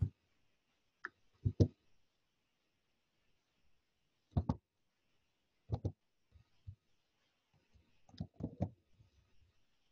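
Scattered clicks of keys on a computer keyboard: a quick pair about one and a half seconds in, single clicks near four and a half and six seconds, and a short run of clicks near the end.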